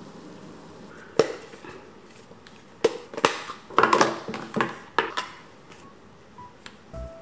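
Kitchen utensils clicking and knocking against dishes and containers: a run of sharp, irregular knocks, about eight of them, bunched together near the middle.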